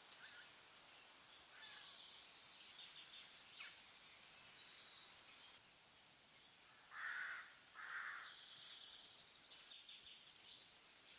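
Faint forest ambience with birds chirping high and thin, and two louder, lower calls close together about seven seconds in.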